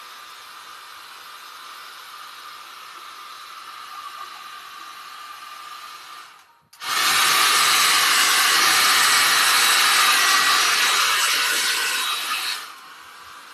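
Small handheld hair-dryer-style blower running steadily, blowing poured acrylic paint across a canvas. About six seconds in it cuts out for a moment, then comes back much louder for about six seconds before dropping back to the quieter level.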